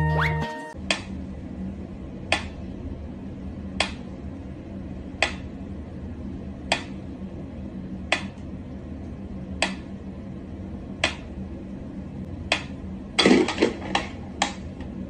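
Mechanical pendulum metronome ticking slowly and evenly, about one sharp tick every second and a half, over a low hum. Near the end come a quick flurry of louder knocks and clicks.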